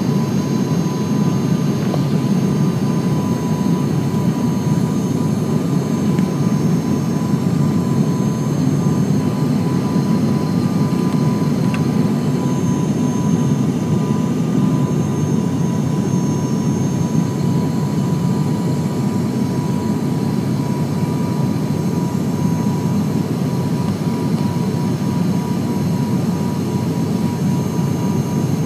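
Propeller airliner's engines and propellers droning steadily, heard from inside the cabin during the descent to land, with a steady tone riding above the low drone.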